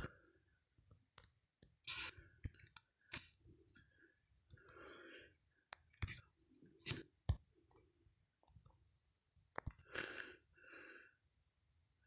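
Several faint, sharp clicks as a finger taps and scrolls through an Alcatel S'Pop touchscreen phone's alarm menus, with a few soft breathy sounds like whispering between them.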